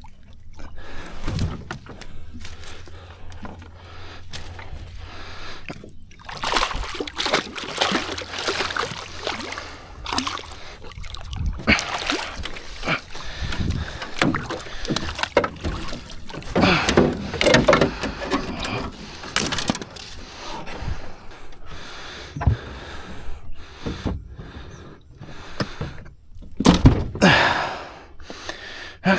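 Irregular water splashing and sloshing beside a small fishing boat as a channel catfish is hauled up on a pool-noodle line, with sharp knocks of handling against the boat.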